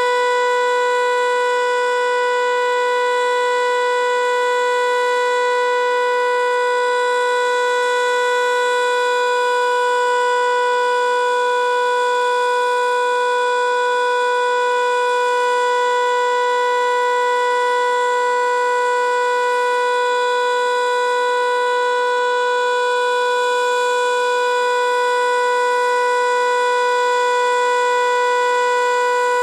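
American Signal T-121 electromechanical outdoor warning siren sounding the Alert signal: one steady, unbroken tone that holds its pitch, loud, with only a slight slow rise and fall in loudness.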